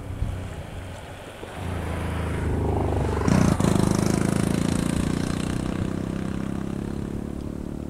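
An unseen motor engine running as it passes: it grows louder from about a second and a half in, is loudest around three seconds, then slowly fades away.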